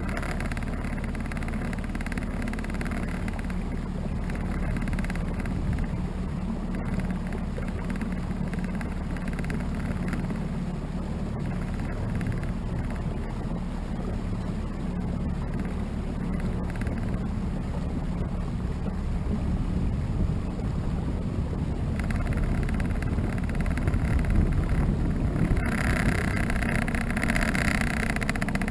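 A small boat's motor running steadily while the boat is under way, with water and wind noise over it. The hiss grows louder near the end.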